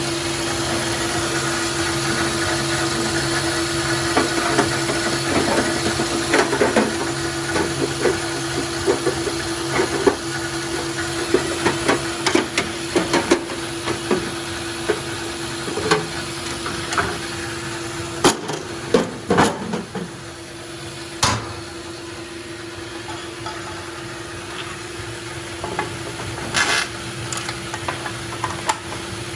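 Grob NS18 vertical band saw running with a steady motor hum, with many irregular clicks and knocks over it, thinning out past the middle and returning near the end.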